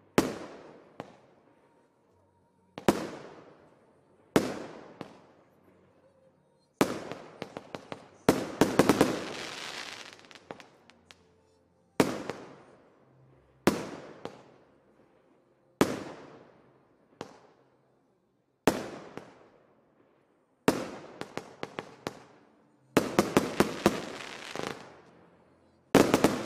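A 30 mm, 25-shot firework cake (Triplex Enduro TXB 039) firing, one sharp bang about every one to three seconds, each with a long echoing tail. A few seconds in and again near the end, the bursts are followed by rapid crackling from the crackling stars.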